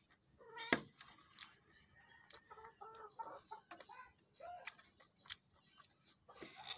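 Faint animal calls, short rising-and-falling cries repeated many times, with sharp clicks and smacks of eating mixed in.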